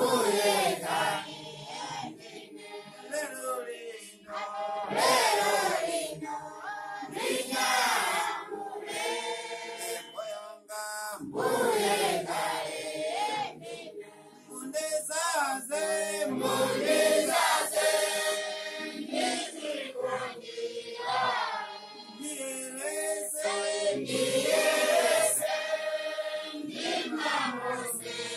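A church congregation singing together in chorus, with women's and men's voices.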